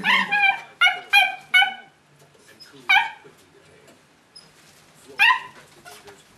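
Puppy play-barking at a dangled toy in short, high-pitched yips: a quick run of about five in the first two seconds, then single yips about three and five seconds in.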